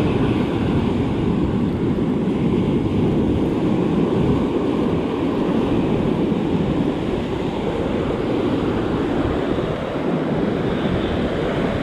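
Surf breaking and washing up the sand in a steady, loud rush, with wind buffeting the microphone.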